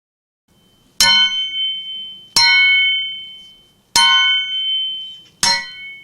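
Foley sword clashes made from a spade, a hammer and saucepan lids struck together and slowed a little to deepen them. Four sharp metal strikes about a second and a half apart, each with a bright ringing ping that fades over about a second.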